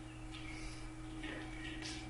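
Whiteboard marker scratching and squeaking across the board in a few short strokes as lines are drawn, over a steady low hum.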